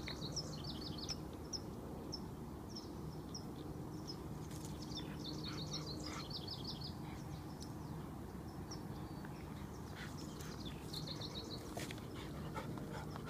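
Small birds chirping in short repeated trills, on and off, over a steady low hum.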